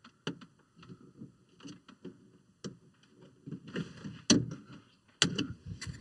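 Plastic interior trim of a pickup cab being worked loose and handled: scattered clicks, rattles and knocks, with two sharper knocks about four and five seconds in.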